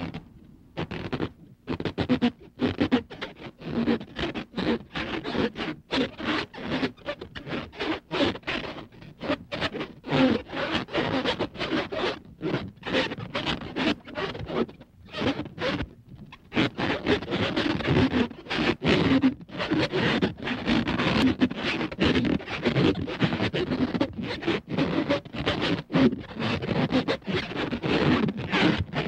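Rapid, irregular scraping and scuffling on rough ground, like bodies and feet struggling in dry dirt and brush, with a short pause about halfway through.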